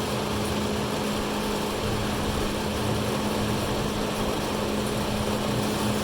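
Harbor Freight horizontal bandsaw running steadily, its motor giving an even hum.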